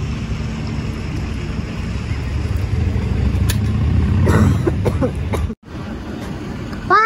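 A low, steady rumble like distant traffic or wind that cuts off suddenly about five and a half seconds in. Near the end a crow gives a harsh caw.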